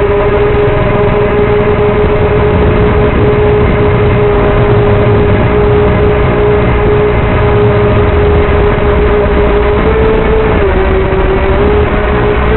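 Four brushless motors (Multistar Elite 2204-2300KV) spinning 3-blade 5-inch props on a 250-size racing quadcopter in flight, heard from on board: a loud, steady whine with a low rush underneath, its pitch dipping briefly about ten seconds in.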